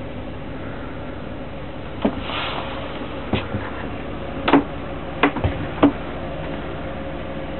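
Five or so short, sharp knocks and clicks spread over a few seconds, the loudest about halfway through, over a steady hum and hiss.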